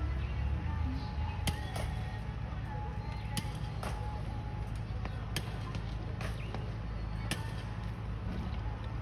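Outdoor ambience: a steady low rumble with sharp knocks or clicks, irregular at roughly one a second.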